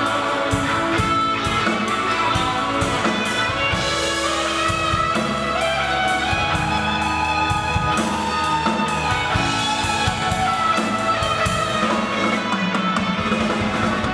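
Live band music: strummed acoustic guitar and electric guitar over a drum beat.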